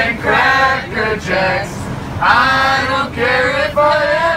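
A plane cabin full of passengers singing together in unison, men's and women's voices in long held phrases, over the steady low hum of the aircraft cabin.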